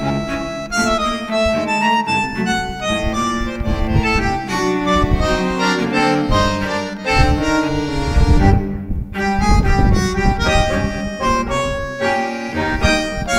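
Background instrumental music: a continuous tune of changing pitched notes over a bass line.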